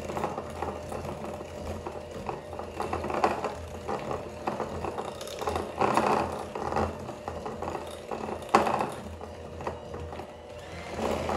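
Electric hand mixer running steadily, its beaters working a thick cream cheese batter, with a few louder clatters at about 3, 6 and 8.5 seconds in.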